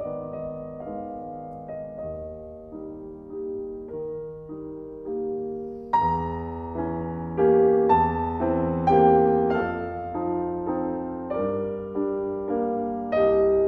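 Background piano music: a slow melody of held notes that becomes fuller and louder about six seconds in.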